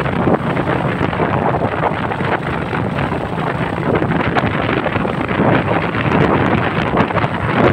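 Wind buffeting the microphone of a moving vehicle, with steady road and engine noise underneath.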